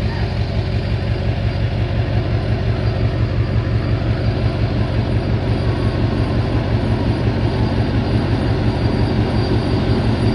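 White 8900 combine's diesel engine running as the combine drives up the road, a steady low throb with a fast even pulse that grows gradually louder as it comes closer.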